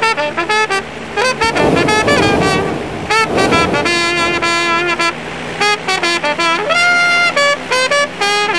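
Jazz trumpet playing quick runs of notes and a long held high note near the end, over a low steady tone. Two swells of rushing noise rise under it about two and three and a half seconds in.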